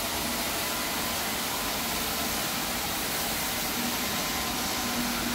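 IPC Eagle walk-behind floor scrubber running: a steady, even rushing hum with a faint steady whine.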